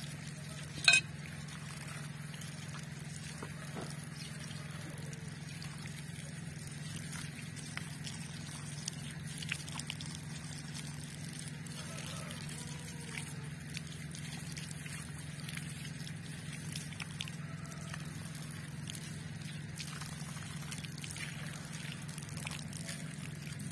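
Water running from an outdoor tap and splashing over a chicken and onto stones as the bird is washed, with small splashes and drips throughout. A steady low hum sits underneath, and there is one sharp knock about a second in.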